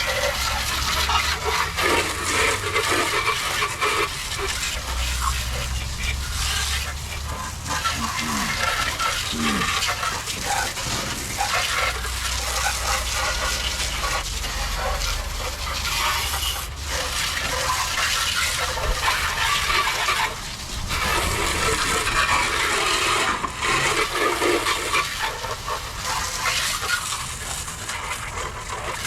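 Water splashing and running as a car's engine bay is washed down: an uneven hiss with a few brief knocks.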